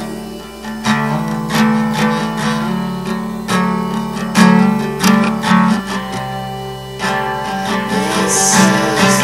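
Acoustic guitar strumming chords in a soft indie folk song, with regular strokes.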